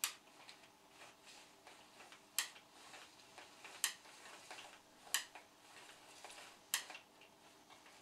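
Spring-loaded cable rewind reel of a Siemens Dynapower 1800 vacuum cleaner clicking as the power cord is let wind back slowly onto it: five sharp clicks about a second and a half apart, with fainter ticks between.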